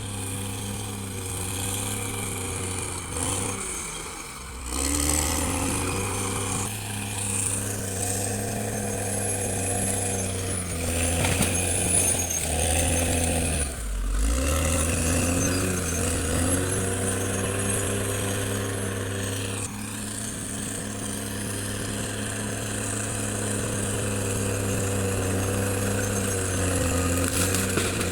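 Caterpillar D6R XL bulldozer's diesel engine working under changing load, its pitch dipping and rising again twice, with a thin high whine wavering above it.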